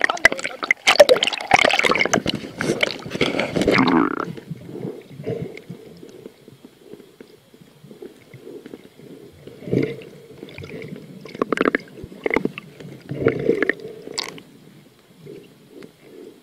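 Choppy seawater splashing over a camera at the surface. About four seconds in the sound goes muffled as it goes under, and a scuba diver's regulator breathing takes over, with short gurgling bursts of exhaled bubbles.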